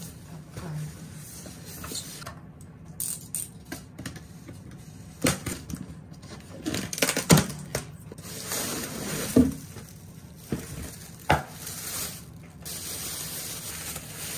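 Unpacking a styrofoam box on a wooden table: scattered knocks and scrapes as the box is handled and its lid pulled off, the loudest knock about halfway through. Toward the end comes the crinkling of a plastic bag as the packed food is lifted out.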